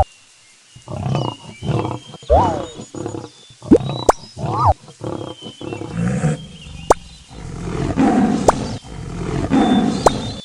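A big cat roaring and growling in repeated rough bursts, with a few sharp clicks and quick up-and-down pitch glides over it.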